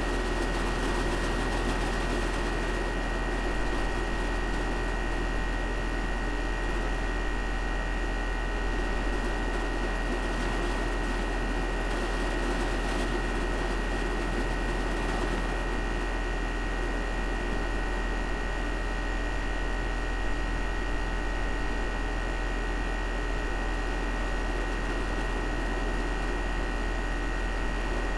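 Carrier outdoor air-conditioning unit running steadily: a low compressor hum with fan noise and a thin steady whine on top.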